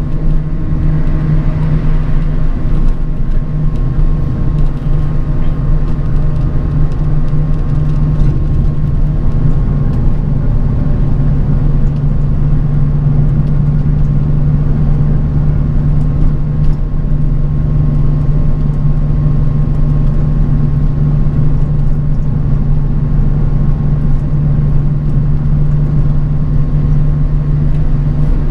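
Bus under way, heard from inside: a steady low engine drone with road noise, a faint steady high tone and a few light rattles.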